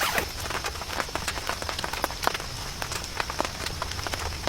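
Heavy rain, with many drops striking a surface as irregular sharp ticks over a steady hiss.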